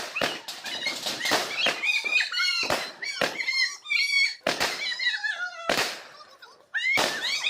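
Diwali firecrackers going off in quick succession: a string of sharp bangs and pops, with shrill sounds between them and a short lull near the end.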